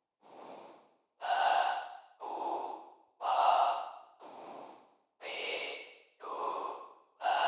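Artificial breathing made in Pro Tools from signal-generator noise shaped by vowel filters and reverb: about eight breath-like strokes, roughly one a second, each with a vowel-like colour and some louder than others.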